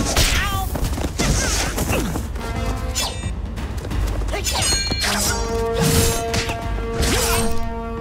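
Action-film fight soundtrack: a run of hard punch and body-blow impact sounds over music, with long held music notes coming in about five seconds in.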